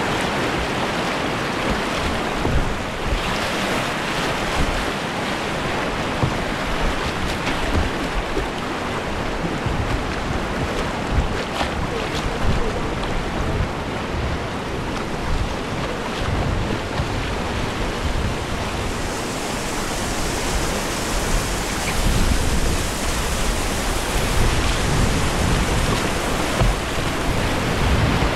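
Steady rushing of whitewater from a fast-flowing river, with wind and water buffeting the microphone in low rumbles.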